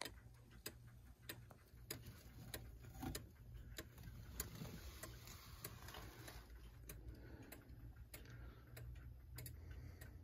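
New Haven time-only pendulum clock movement ticking faintly and evenly, about three beats every two seconds, freshly cleaned and oiled. Its tick is called beautiful.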